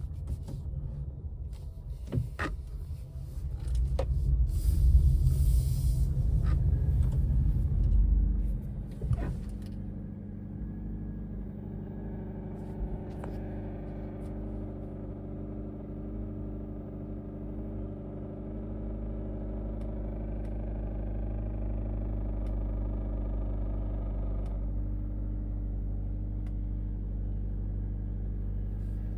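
2024 Honda CR-V Hybrid engine on a cold start. A few sharp clicks and a loud low rumble come in the first nine seconds or so, then it settles into a steady low running hum. This is the cold-start rattling noise the owner is chasing, still present after the active noise cancelling generator was disabled.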